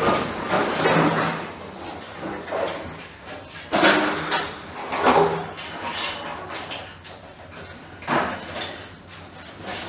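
Irregular metal knocks and scrapes as the Ford F100's front-end sheet metal is worked loose and lifted off with an engine hoist, with a sharper knock about four seconds in and another about eight seconds in.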